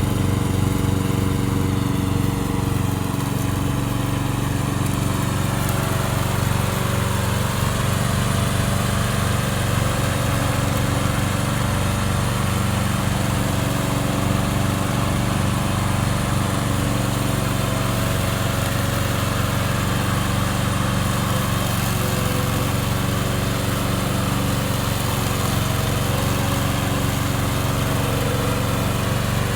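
Gasoline engine of a remote-control lawn mower running steadily.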